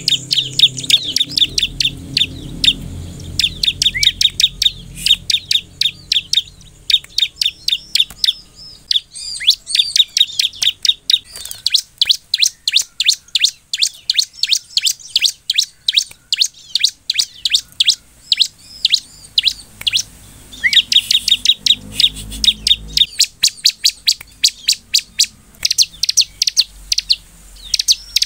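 Bar-winged prinia (ciblek) singing: loud, rapid runs of sharp, high chirps, about three to four a second, broken by short pauses.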